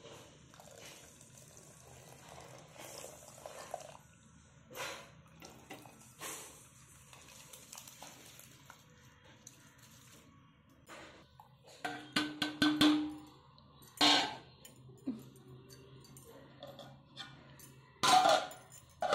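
Steel plate clinking and scraping against the rim of an aluminium cooking pot as rice is tipped into the hot water, then a loud metal clatter near the end as a cover is set over the pot.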